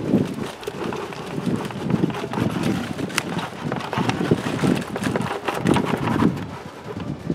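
Kitchen scraps poured from a plastic bucket into a tire planter, landing in an irregular run of soft thuds and rustling, with a few sharper knocks.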